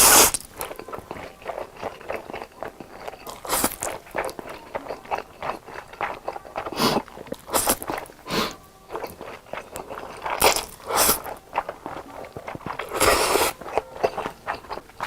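Close-miked eating: crunching bites and chewing, with a few louder crunches scattered among many small ones.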